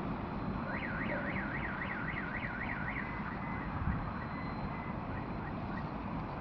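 Car alarm siren warbling rapidly up and down, about four sweeps a second. About three seconds in it changes to a run of short, level-pitched beeps, over a steady low rumble of city noise.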